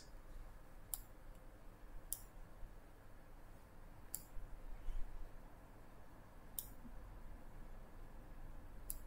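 Computer mouse clicking five times at irregular intervals, sharp and faint, over a low steady hum.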